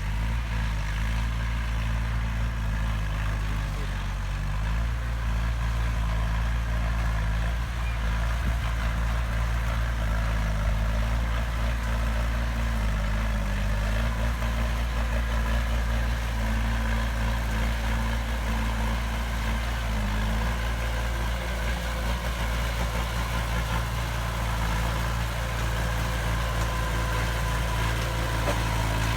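Heavy construction machine's diesel engine running steadily at a low, even speed, with a deep hum that shifts only slightly in pitch.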